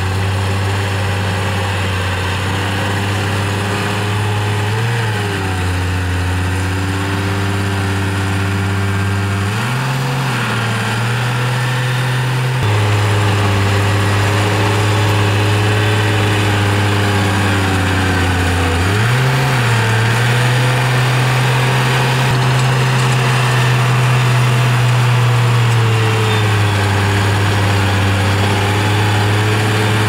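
Komatsu D51 bulldozer's diesel engine running. Its note dips and comes back up several times, and it gets a little louder partway through.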